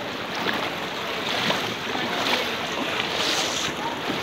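Muddy floodwater splashing and sloshing around the legs of people wading through it, in uneven surges about once a second.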